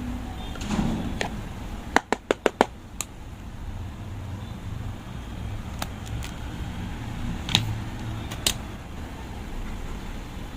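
Slime being handled and pressed, making sharp clicks and pops: a quick run of five about two seconds in, then a few single ones, over a steady low hum.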